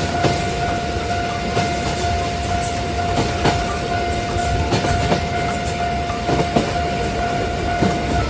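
Train running on the rails, a steady rumble with irregular clacks from the wheels, under a steady high tone that is held throughout and cuts off just before the end.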